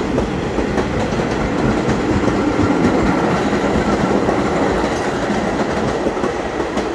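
New York City subway train running past on a far track: a steady rumble of steel wheels on rail, with clicking as the wheels cross rail joints.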